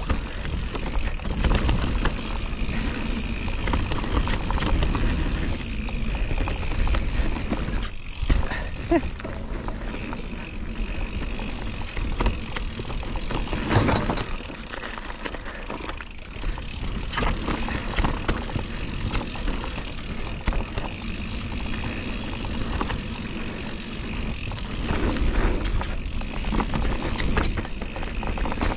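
Enduro mountain bike descending a dirt trail: tyres rolling over the ground and the bike rattling and knocking over bumps, with wind rushing over the microphone.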